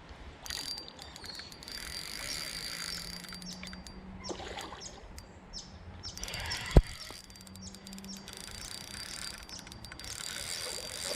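Fishing reel ticking in quick runs of clicks while a big carp is played on light line, with small birds chirping. A single sharp knock about seven seconds in is the loudest sound.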